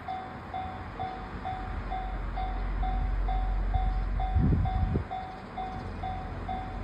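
Japanese level-crossing alarm ringing its steady repeated electronic ding, about two strikes a second, over the low rumble of the KiYa E193 series diesel inspection train passing. Two heavy thumps about half a second apart a little past four seconds in.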